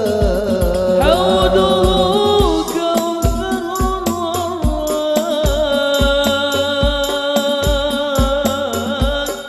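A male solo singer chanting an Arabic sholawat into a microphone in long, ornamented held notes, over a hadroh ensemble of frame drums with a deep bass drum keeping a steady beat of about two strokes a second.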